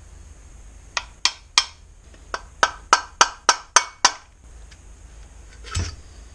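A run of about eleven sharp taps and knocks on the parts of a dismantled Honda GX35 engine over about three seconds, then a single duller knock near the end.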